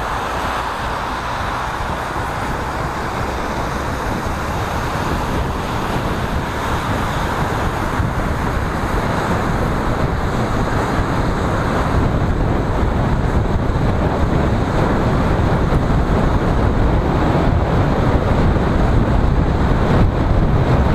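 Road noise inside a moving car: tyres hissing on wet asphalt over the low rumble of the car, growing steadily louder.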